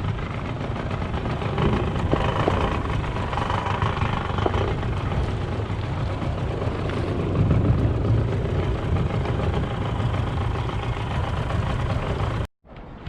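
An engine running steadily at a constant speed, with a broad rushing noise over it. The sound cuts off suddenly near the end.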